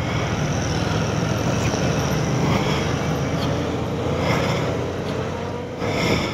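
Motorcycle being ridden: steady engine and road noise.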